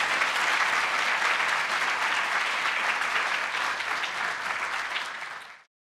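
Audience applauding: dense, steady clapping that eases a little, then cuts off suddenly about five and a half seconds in.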